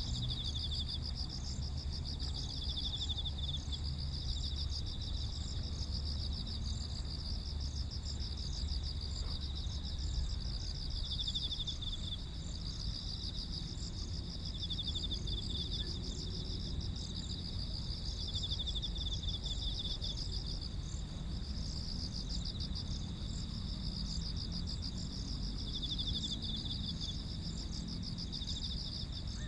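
A chorus of many insects calling together in a field: overlapping high-pitched pulsed trills in repeating phrases, one voice pitched a little higher than another, over a low background rumble that eases after the first third.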